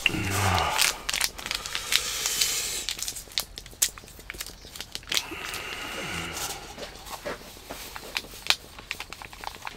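A small packet being torn open and crinkled by hand, with many irregular sharp crackles and clicks.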